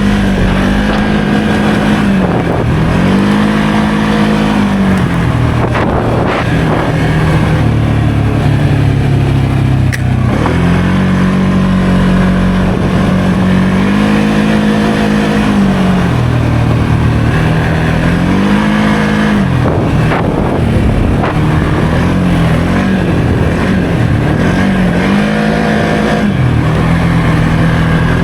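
Can-Am Outlander 700 XMR ATV engine under way, revving up and easing off over and over as the rider throttles, its pitch climbing and dropping several times.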